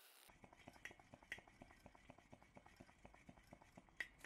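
Faint rapid clicking and ticking from hands working the fuel valve on a Coleman 508A stove's fuel tank, with a few sharper clicks about a second in and near the end.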